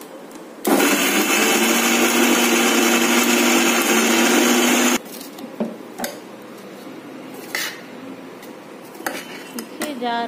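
Sumeet mixer grinder running in one loud burst of about four seconds, grinding coconut pieces, chillies and cumin in its steel jar, then cutting off suddenly. The mix is still coarse and crumbly-dry. A few clinks follow as a steel spoon stirs in the steel jar.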